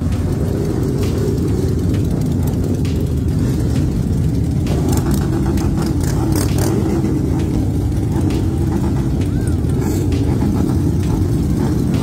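Several big cruiser motorcycles running together, a steady deep rumble whose pitch wavers up and down as the engines are revved.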